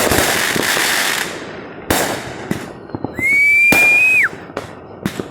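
Aerial fireworks display: a dense crackle for the first second, then sharp bangs, and midway a whistling shell whose tone rises and holds for about a second before dropping away as a loud burst goes off.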